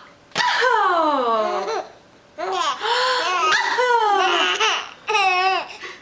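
A baby laughing in high-pitched squeals, in three bursts with short pauses between them.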